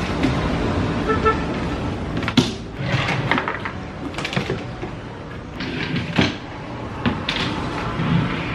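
Papers and notebooks being handled and put into a furniture drawer: rustling, the drawer sliding open, and several sharp knocks as items are set down, over steady background noise.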